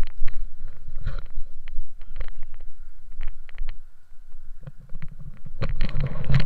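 Handling noise on a body-worn camera as a landed ram-air parachute canopy and its lines are gathered: scattered knocks and fabric rustles over a low rumble, with a louder, denser stretch of rustling near the end.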